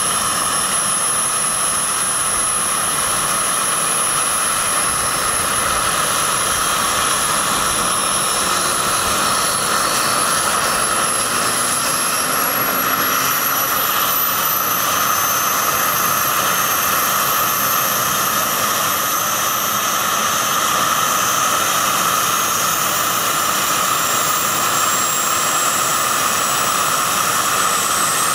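Gas turbine of a giant RC scale model SA-319 Alouette III helicopter running on the ground with its rotor turning: a loud, steady turbine rush with a thin high whine that slowly rises in pitch through the second half.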